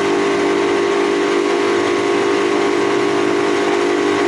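Outboard motor of a small fishing skiff running at a steady cruising speed: an unchanging drone with a steady hiss over it.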